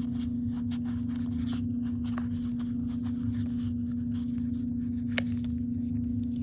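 Scissors snipping through a craft foam sheet, a run of short crisp cuts, with one sharper click about five seconds in. Underneath runs a steady low hum.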